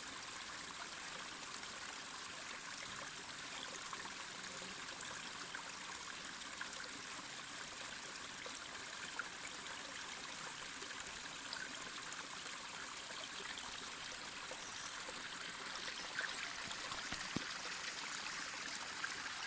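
Mountain stream running steadily, a constant even hiss of flowing water.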